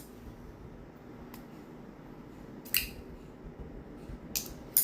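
Folding pocket knife being worked by hand: three sharp metallic clicks in the second half as the blade snaps open or shut against its lock.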